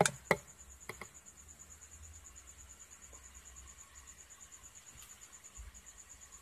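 A cricket chirping steadily in fast, even pulses, with a few sharp clicks in the first second.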